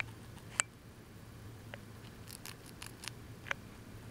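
A hamster gnawing and chewing food held at its mouth: a scatter of sharp, irregular little clicks and crunches.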